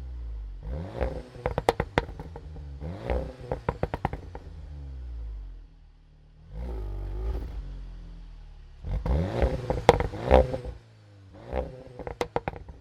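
2017 VW Golf R's turbocharged 2.0-litre four-cylinder through an Akrapovic exhaust, blipped five times from idle. Each rev rises and falls back, and most are followed by a quick string of pops and crackles on the overrun. The fourth blip is the biggest and longest.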